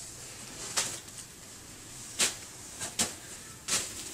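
A handful of short swishing rustles as clothing is handled and a knit sweater is pulled out of a box lined with a plastic bag.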